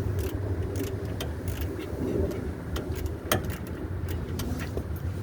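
Hand tools clicking and tapping on metal as a rear brake caliper bolt is fitted, in sharp irregular clicks about two a second, over a steady low hum.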